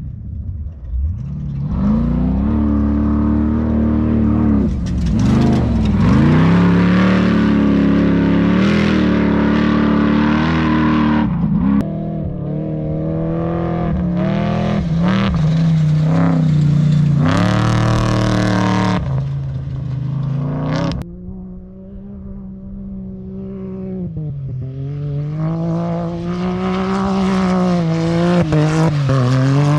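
Off-road desert race vehicle's engine running loud and close, its revs rising and falling again and again as it passes. It drops away about two-thirds of the way through, then builds again.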